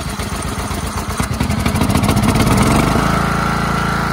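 Craftsman riding lawn mower's engine running just after starting. It goes from a pulsing, uneven run to a higher speed, rising in pitch, and settles into a steady, faster run about three seconds in.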